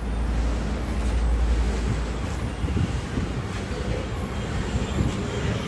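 Road traffic noise, a heavy vehicle passing with a low rumble that fades about two seconds in, with a few light knocks later on.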